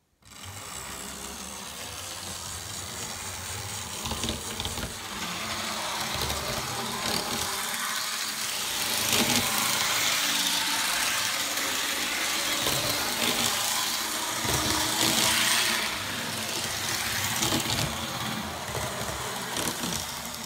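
N scale Atlas EMD E7 model diesel locomotive running on the track: its small electric motor whirring and its wheels running on the rails. It starts just after the beginning and grows louder and softer as it circles, loudest around the middle.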